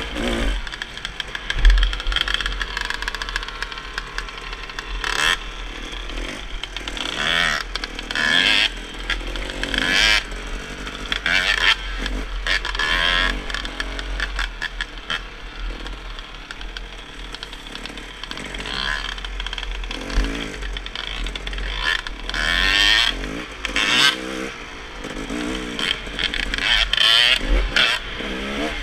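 Dirt bike engine revving up and dropping back over and over as it is ridden hard along a trail, with a steady low rumble under it.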